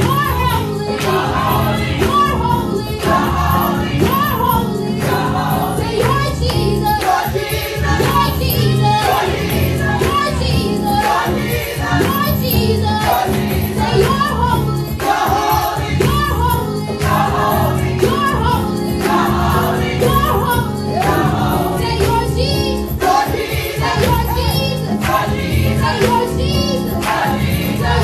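Church choir singing a gospel worship song live, a lead singer on microphone over the choir and a steady instrumental backing.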